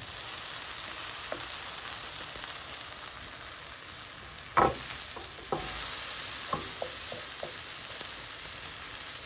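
Zucchini and carrot fritters sizzling in a nonstick frying pan while a spatula is worked under them to flip them. There is one sharp knock of the spatula against the pan about four and a half seconds in, a few lighter ticks after it, and the sizzle gets a little louder just after the knock.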